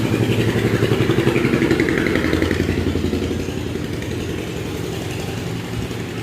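A small engine running with a rapid, even pulsing over a low steady hum, loudest in the first few seconds and then easing off slightly, like a motorcycle passing.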